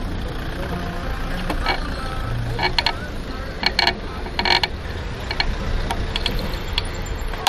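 Bicycle being ridden over city pavement: a steady low rumble of road and wind, with short bursts of clicking and rattling from the bike every second or so.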